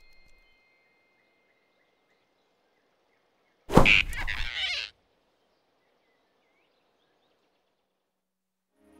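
Sudden whoosh-and-thud sound effect of a hand snatching, about four seconds in and lasting about a second; the rest is near silence.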